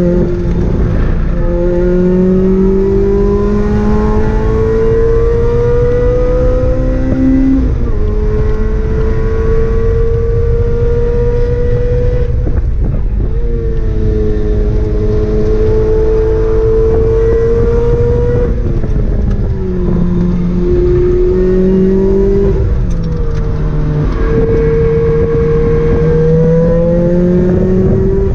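Lotus Exige S engine under hard driving, heard from inside the cockpit: the pitch climbs steadily as it pulls through the revs, then shifts sharply at a few gear changes and lifts about 8, 13, 19 and 23 seconds in, over a steady rumble of road and tyre noise.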